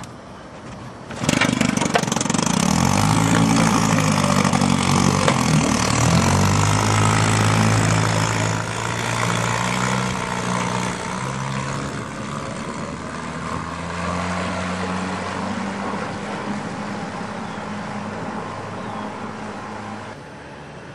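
1957 Johnson two-stroke outboard motor coming in sharply about a second in, revving up over the next couple of seconds, then running steadily under way and growing fainter as the boat pulls away, dropping off abruptly near the end.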